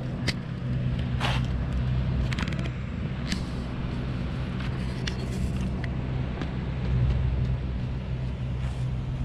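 Steady low motor hum, with a few light clicks and scuffs scattered over it.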